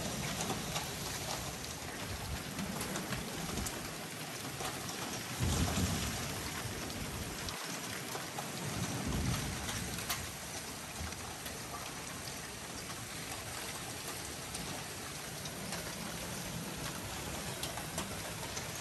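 Hailstorm: a dense, steady hiss of hail and heavy rain pelting roofs and the street, with a few sharp clicks of stones striking. Low rumbles swell up about five to six seconds in and again around nine seconds, the loudest moment near the first.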